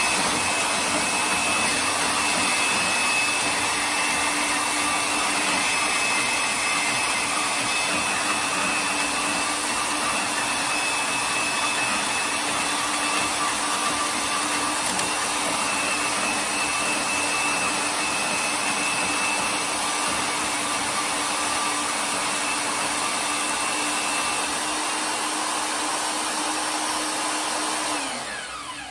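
Milwaukee portable band saw running steadily while cutting a flat metal bar, with a steady motor whine. Near the end the saw is switched off and winds down.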